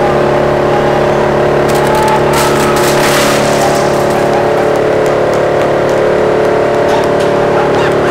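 Wood chipper running steadily at speed, with a burst of cracking and crunching about two to three seconds in as a Traxxas TRX-4M mini RC crawler is pulled into the drum and shredded. Scattered clicks of debris follow.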